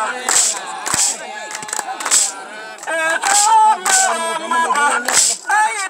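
Sharp percussive cracks at an uneven beat, about one or two a second, over voices singing a stepped melody of held notes, accompanying a goumera dance.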